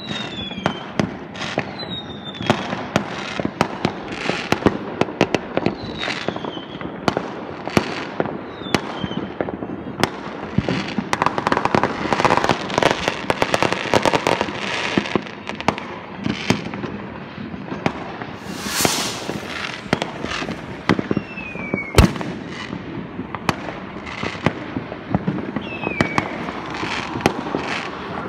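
Many fireworks and rockets going off across a neighbourhood: a continuous run of bangs and crackles, with short falling whistles from rockets every few seconds. A dense crackling stretch comes in the middle, and one sharp bang about two-thirds of the way through is the loudest.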